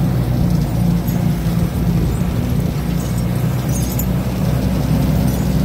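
Diesel engine of a logging machine running steadily, heard from inside its cab as an even, low hum.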